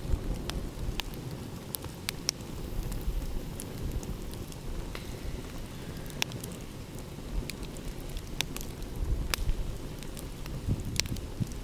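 Open wood fire crackling, with scattered sharp pops, over a steady low rumble.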